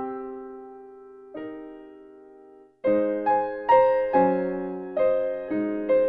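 Background piano music: a held chord that slowly fades, a near-silent gap, then a livelier run of notes resumes about three seconds in.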